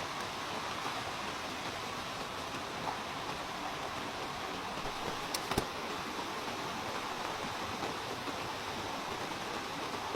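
Steady, even rushing noise with two sharp clicks about five and a half seconds in.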